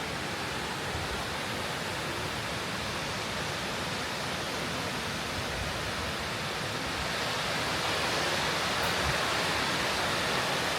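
Ouzoud Falls, a large waterfall, giving a steady rush of falling water that grows a little louder about two-thirds of the way in.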